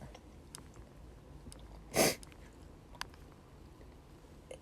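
A woman sniffling once, a short breathy sniff about two seconds in, from a runny nose during a sneezing fit. A few faint clicks are scattered around it.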